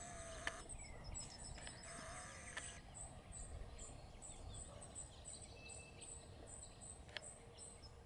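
Faint outdoor birdsong: thin, high chirps repeating throughout, with a lower whistled note early on and a soft click about half a second in and another near seven seconds.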